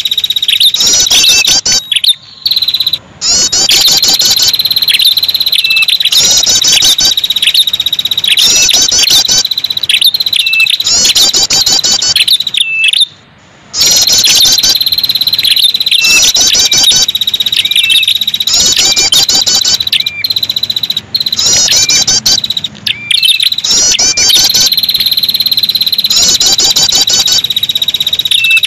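Looped lure recording of the red-headed prenjak's calls: rapid high-pitched chattering trills repeating about once a second over a continuous shrill high buzz, broken by brief pauses about two seconds in and about thirteen seconds in.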